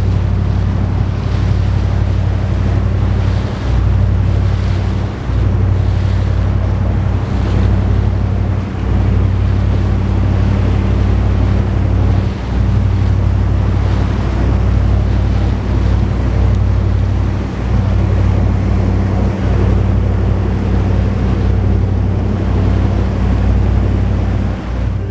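Bruno & Stillman 35 lobster yacht under way: a steady low engine drone with water rushing past the hull and wind buffeting the microphone.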